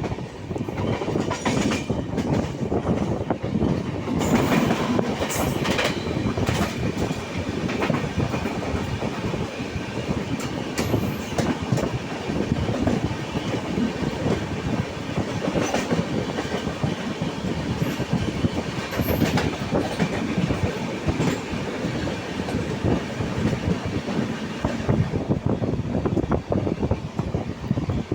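Train running on the rails, a steady rumble with frequent sharp clicks of the wheels over the track.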